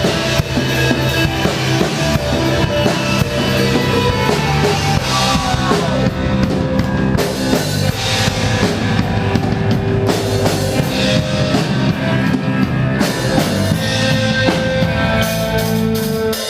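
Instrumental break of a punk rock song played live: drum kit, distorted electric guitars and bass, with no vocals.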